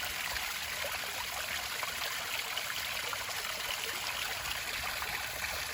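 Small backyard waterfall trickling and splashing steadily.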